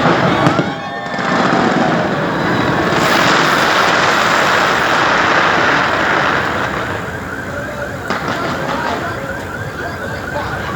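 Fireworks display: a loud noisy rush that swells about three seconds in, then a rapidly repeating short rising chirp, two or three a second, through the second half.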